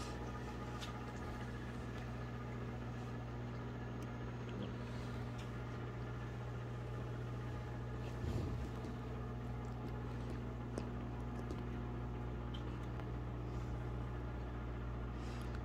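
Steady low mechanical hum with several constant tones, with a few faint clicks and a brief rustle about eight seconds in.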